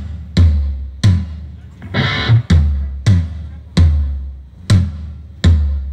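Single strikes on a low drum of a rock drum kit during a sound check, one about every 0.8 s, each with a deep booming ring that fades before the next hit.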